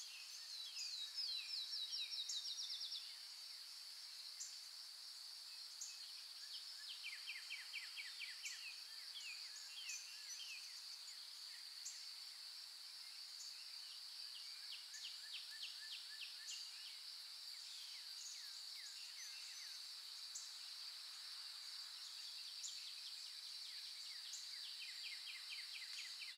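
Birds singing, faintly: repeated trills of quick falling notes, in bouts that come and go, over a steady high drone.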